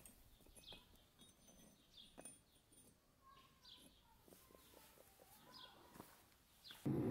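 Faint clicks and scrapes of rebar being laid on a firebrick inside a homemade forge, with a small bird chirping repeatedly in short falling notes. Just before the end a loud, steady rushing noise starts abruptly: the forge firing.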